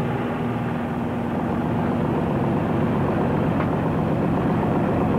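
A fishing boat's engine running steadily, an even low drone.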